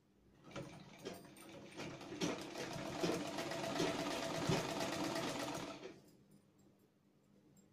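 A black domestic sewing machine stitching, its needle ticking rapidly. It speeds up over the first couple of seconds, runs steadily, and stops about six seconds in. It is sewing a long temporary basting stitch along the folded neck facing of a kurti.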